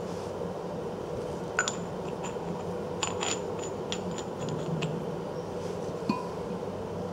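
Light metallic clinks and ticks as a threaded steel rebar and a steel coupler sleeve are handled and screwed together by hand. There is a single clink, then a quick run of ticks, then one more, over a steady low hum.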